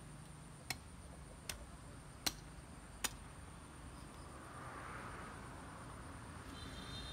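Four sharp chops of a large knife blade striking thin wooden branches, about one every 0.8 s, followed by a soft rustle of the cut sticks being gathered by hand.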